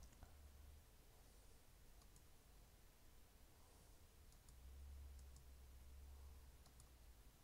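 Near silence with a few faint computer mouse clicks, some in quick pairs, over a faint low hum.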